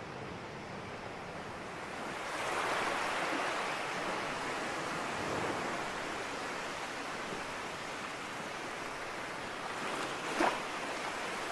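Sea surf washing onto a shore: a steady rushing hiss of waves that swells about two seconds in. A brief tap sounds near the end.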